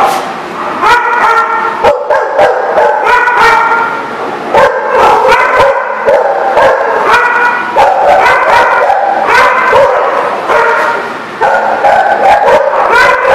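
Several dogs barking and yipping together in a continuous loud din, with pitched calls following one another without pause.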